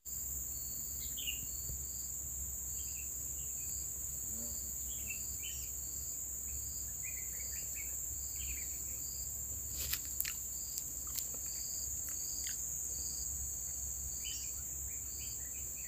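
Insects droning steadily at a high pitch, with a regular pulsing insect chirp and scattered short bird chirps over it. A few brief clicks come about ten seconds in.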